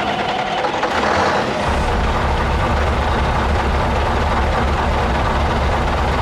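Truck engine running loudly and steadily, with a deep low rumble setting in about a second and a half in.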